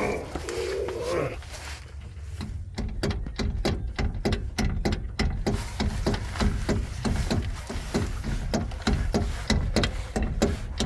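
Rear suspension of a Suzuki Vitara creaking and clunking in short, even strokes, about three or four a second, as the car body is rocked side to side. The owner traces the noise to the anti-sway bar, whose mounting bolts are missing or working loose.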